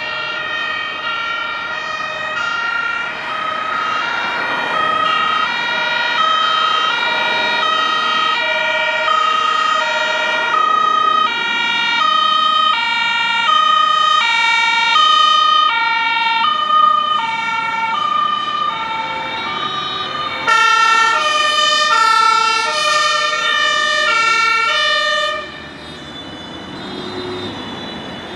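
Two-tone sirens (German Martinshorn) of several emergency vehicles, their high and low notes alternating out of step with one another. About 20 seconds in a louder, brighter siren joins and then cuts off about five seconds later.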